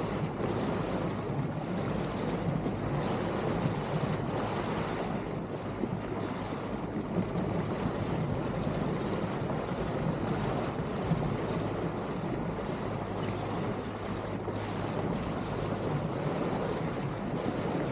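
Steady rush of wind and water from a small cabin fishing boat running at speed, with a low engine drone underneath and wind buffeting the microphone.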